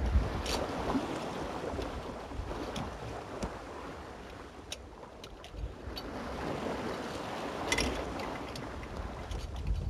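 Sea rushing along the hull of a Contessa 26 sailboat under sail, with waves breaking alongside. Wind buffets the microphone with a low rumble. The rush swells about a second in and again near the end.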